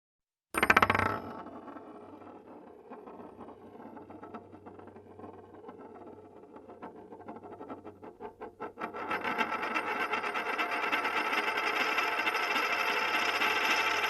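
Coins dropping onto a hard surface: a sudden clatter about half a second in that fades into a ringing rattle. The rattle quickens, and from about two-thirds in it becomes a louder, continuous metallic jingle.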